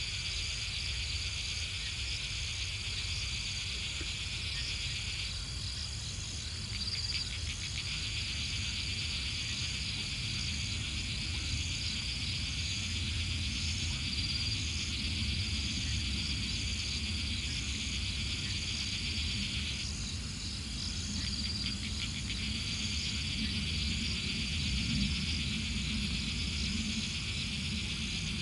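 Night chorus of crickets and other insects: a steady, high trilling that thins out twice for a couple of seconds, letting a pulsed chirping show through, over a low background rumble.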